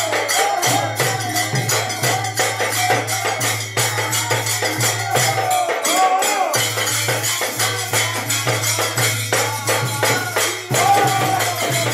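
Men singing together over a dholak barrel drum and a small hand drum, with brass hand cymbals and a clapper keeping a fast, steady jangling beat. The drums drop out for a moment about six seconds in.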